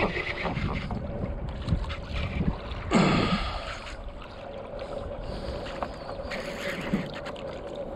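Water splashing and sloshing around a kayak, with sharper splashes about three seconds in and again near the end.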